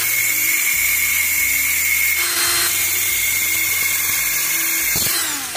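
Cordless drill spinning a cut-off disc on an arbor adapter at high speed, grinding through steel clothesline wire: a loud, steady abrasive hiss with a thin high whine that cuts off near the end.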